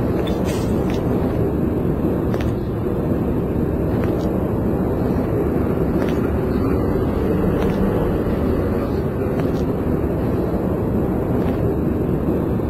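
Steady ambient noise of a large indoor hall, an even dull roar with a few faint clicks.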